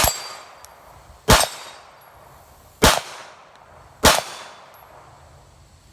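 Four pistol shots from a Glock 23 fitted with a 9mm conversion barrel, fired slowly about a second and a half apart. Each shot rings out and echoes briefly.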